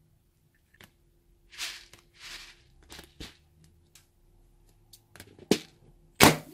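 A latex balloon filled with sprinkles being handled, making two soft hissy swishes and a few light clicks. Near the end comes one sharp snap, the loudest sound, as scissors cut the balloon at its knotted neck.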